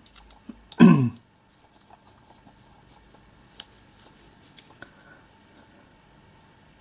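Faint small metallic clicks and ticks as the parts of a miniature brass steam globe valve are handled and screwed back together by hand, a few sharp ones bunched together in the middle. A brief spoken syllable comes about a second in.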